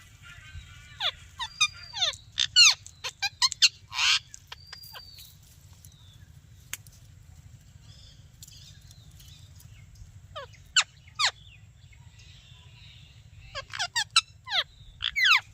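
A parrot chirping: quick runs of sharp, steeply falling chirps in three bunches with pauses between, over a low steady hum.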